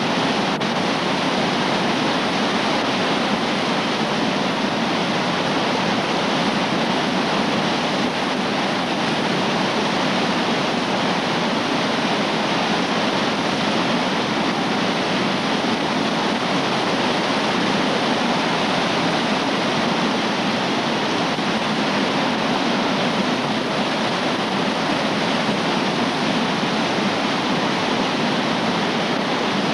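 Big whitewater river rapid rushing over rocks: a loud, steady rush of water with no let-up.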